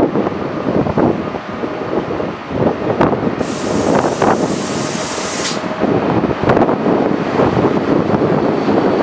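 Train noise at a station, with a loud hiss of compressed air from the train's air brakes starting about three and a half seconds in and cutting off about two seconds later.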